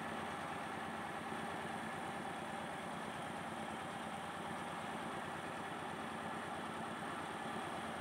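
Truck-mounted mobile rice mill running steadily, its engine and huller making a constant drone while padi is milled into rice.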